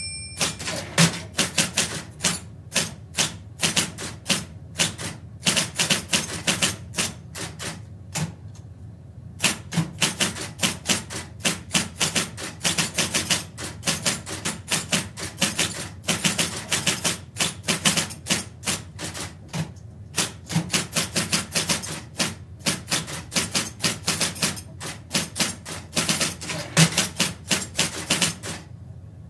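Electric typewriter being typed on at a medium pace, heard from about four metres away: a fast, uneven run of key strikes, several a second, with a short pause about eight seconds in. A steady low hum from the machine's motor sits underneath.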